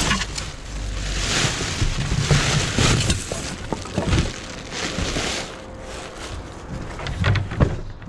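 Black plastic rubbish bags rustling and crinkling in uneven waves as they are pulled about, with a low rumble of handling on the camera and a few sharp knocks near the end.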